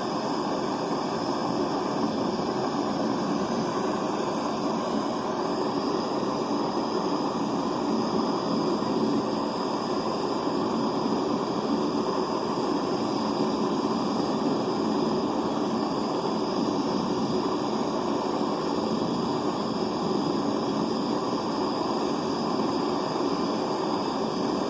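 Handheld butane torch burning with a steady rushing hiss while it heats an aluminium bar that is not yet hot enough to melt the Durafix filler rod.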